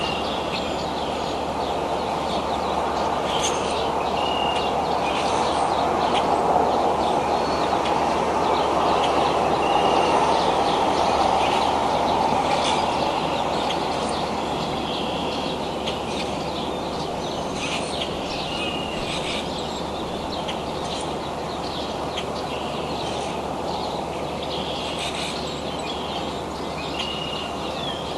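Short, high, even-pitched bird chirps repeating every couple of seconds over a steady rushing background noise that swells slightly partway through.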